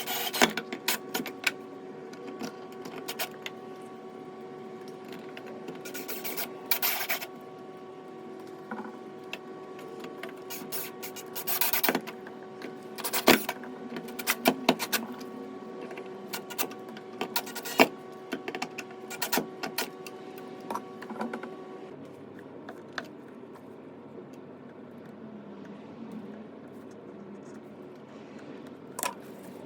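Handling noises: irregular clicks, knocks and scrapes, as of tools and hardware being worked by hand, over a steady hum that cuts off suddenly about two-thirds of the way through.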